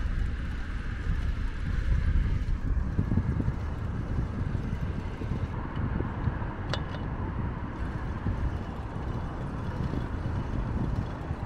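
Wind buffeting the microphone over the steady noise of car traffic on an adjacent road, with a faint click about seven seconds in.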